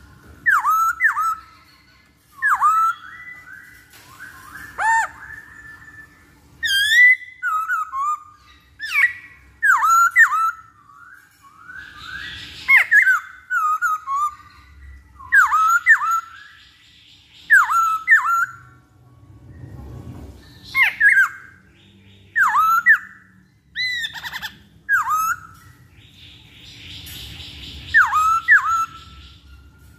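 Black-throated laughingthrush singing: loud whistled notes that slur sharply downward, given in short phrases repeated every second or two.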